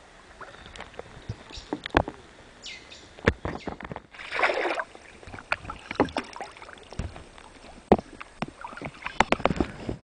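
Paddle strokes in river water from a small paddled boat: splashing and dripping, with scattered sharp knocks and clicks and a longer splash about four seconds in. The sound cuts off suddenly near the end.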